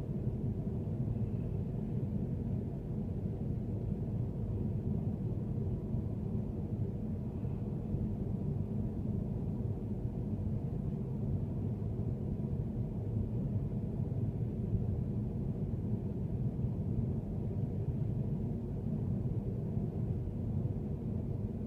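Steady low rumble of a car driving, road and engine noise running on without change.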